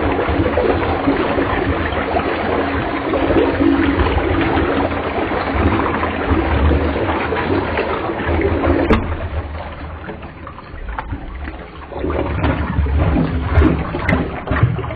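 Toilet flushing: water rushing and swirling down the bowl, easing off about nine seconds in, then rushing again in the last few seconds as the bowl refills.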